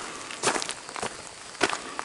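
Footsteps of a person walking, several steps over a steady hiss.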